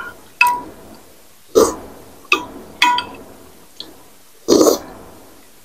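Metal spoon and fork clinking against a glass baking dish of lontong sayur in broth, several separate short ringing clinks, mixed with close-miked eating sounds from the mouth. About 1.6 s and 4.5 s in come two longer, fuller mouth sounds.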